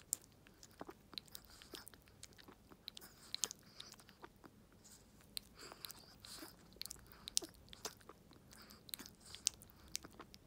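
A Chihuahua licking and lapping liquid food from a syringe: wet tongue clicks and lip smacks, many short sharp clicks at an irregular pace.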